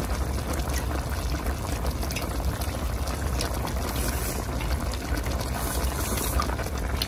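A thick broth of duck offal, fermented tofu and water spinach bubbling steadily at a boil in a wide aluminium pan, with a constant low rumble beneath it.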